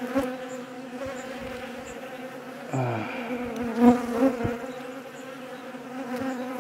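Honeybees buzzing steadily close by, a hum of wingbeats with overtones, with a few soft knocks about halfway through.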